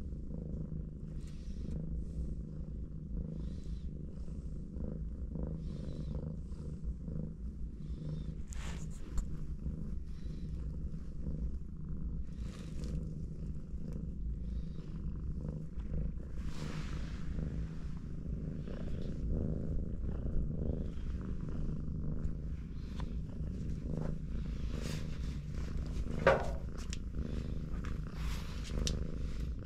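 Domestic cats purring in a low, continuous, fast-pulsing rumble, with a few light rustles. About 26 seconds in there is one brief, louder sharp sound.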